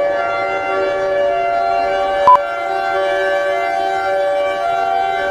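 A steady, unwavering siren tone, several pitches sounding together, broken about two seconds in by a short, loud high beep.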